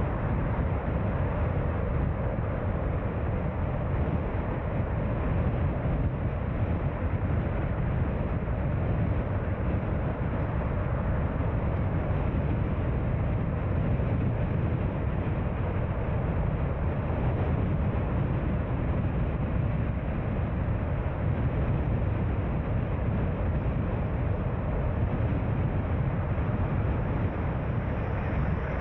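Steady road noise of a car being driven, a low, even rumble of tyres and engine with no distinct events.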